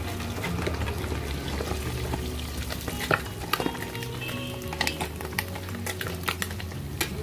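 Kilimeen deep-frying in hot oil in a pot over a wood fire: a steady sizzle, with scattered sharp clicks and scrapes as a metal spatula turns the pieces in the pot.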